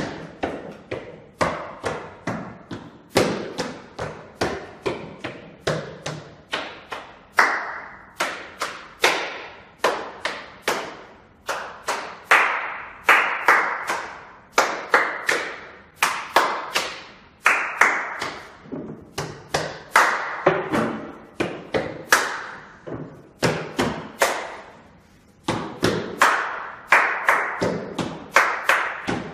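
Body percussion by a group of performers: hand claps and hands slapping a wall, sharp strikes in a steady rhythm, each echoing briefly in the room.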